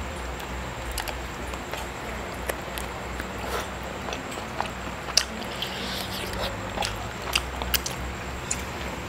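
Close-up chewing and biting of grilled marinated lamb, with scattered short, sharp clicks from the mouth and the meat.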